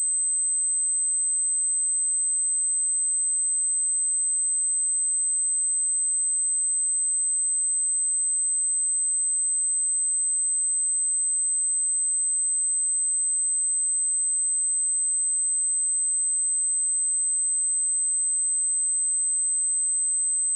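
A pure 8184 Hz sine-wave test tone, one steady high-pitched note held at a constant level.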